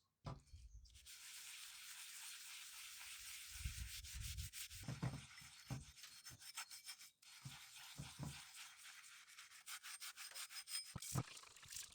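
Faint hand sanding on the hatchet: a steady rubbing hiss for several seconds, then quicker short back-and-forth strokes through the second half.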